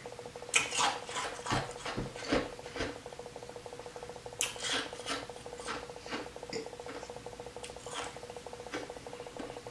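Ice being crunched between the teeth: a series of sharp, irregular crunches, densest in the first few seconds, over a steady faint buzzing hum.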